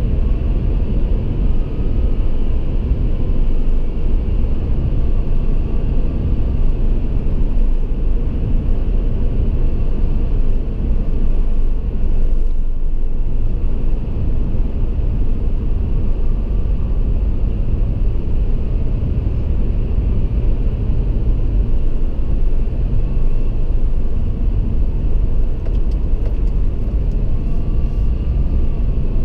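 Car driving through a road tunnel in slow traffic: a steady, loud low rumble of tyres and engine, with a brief lull about halfway through.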